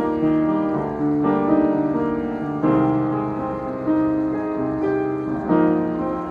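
Background piano music playing slow, sustained chords, with a new chord struck every second or two.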